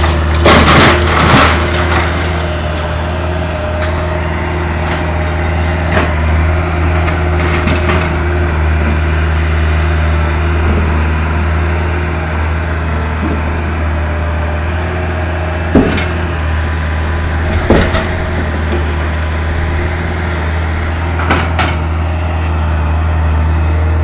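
Bobcat 753 skid-steer loader's diesel engine running steadily, with a few sharp clanks and knocks: several in the first couple of seconds, then single ones scattered through.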